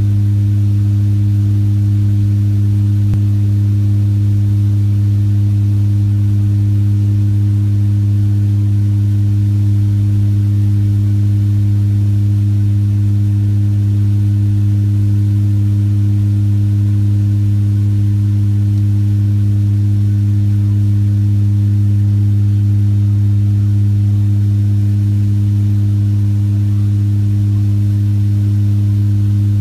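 Steady, unchanging drone of an aircraft's engines heard from inside the cabin in flight: one loud deep hum with fainter higher tones above it.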